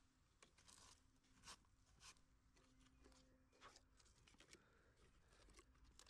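Near silence, with faint scattered crunches and scrapes of a hand working loose garden soil.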